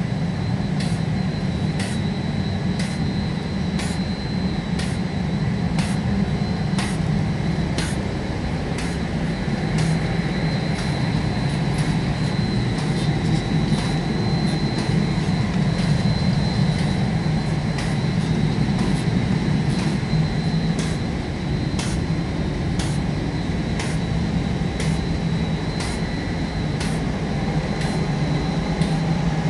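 Sorbini roller coating machine running: a steady low hum from its motors and rollers with a thin high whine over it, and a light click about once a second.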